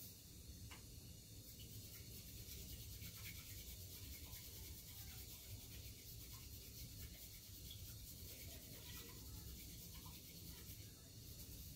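White bamboo tea whisk (chasen) brushing against the inside of a tea bowl in quick, repeated strokes, faint.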